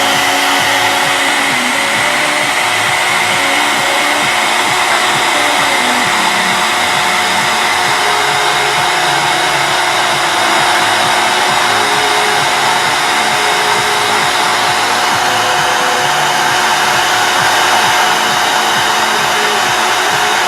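Handheld hot-air blower running steadily: an even rush of air from its fan with a steady high whine over it.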